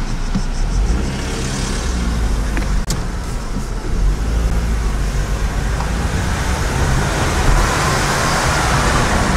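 Car engine and tyre noise heard from inside the cabin as the car drives off: a steady low rumble, with the road hiss growing louder and brighter in the last couple of seconds as the car enters a narrow rock tunnel.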